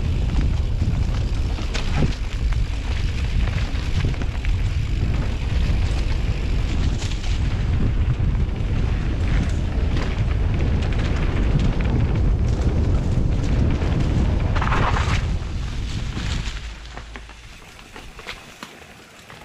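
Heavy wind buffeting on the camera microphone during a mountain-bike ride on a trail, with scattered sharp clicks and rattles from the bike. The buffeting dies down sharply near the end.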